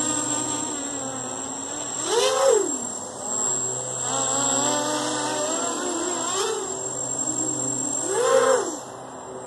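QAV250 racing quadcopter's EMAX MT2204 brushless motors whining as they spin 5040 bullnose propellers. The pitch swells up and falls back twice with throttle punches, about two seconds in and near the end.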